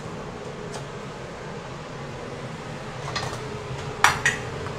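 A few clinks and clatters of metal kitchen utensils against a wok, the sharpest near the end, over a steady background hum.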